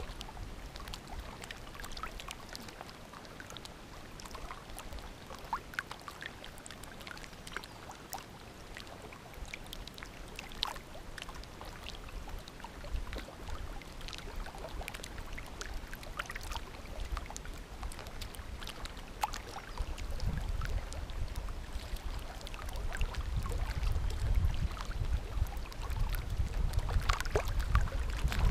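Water lapping and splashing lightly against a cedar strip canoe's hull, with scattered light clicks and knocks. Wind buffeting the microphone comes in as a low rumble about two-thirds of the way through and grows louder.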